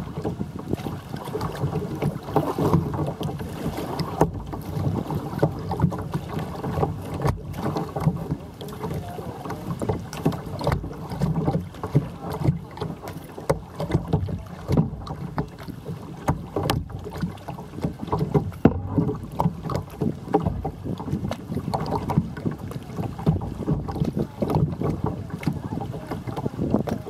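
Water splashing and slapping against the hull of a moving sit-on-top kayak, with wind buffeting the microphone in uneven gusts.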